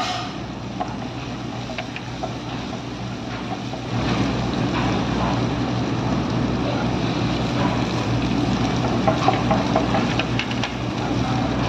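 A steady low machine hum with a rushing noise that gets louder about four seconds in, with scattered light clicks.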